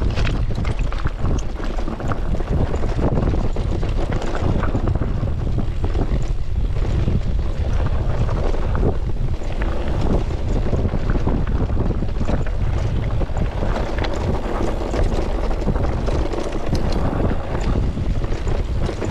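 Wind buffeting the microphone of a camera on a moving mountain bike: a steady low rumble, with many small clicks and knocks from the bike jolting over rough ground.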